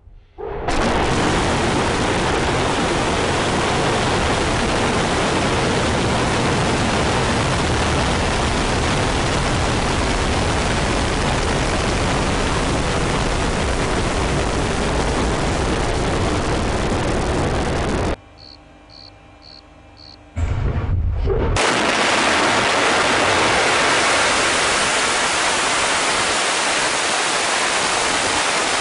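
Loud, steady rushing noise of the Proton-M rocket's first-stage engines at liftoff. The noise drops out for about two seconds a little past halfway, with a few short high beeps and a brief low rumble, then returns at full strength.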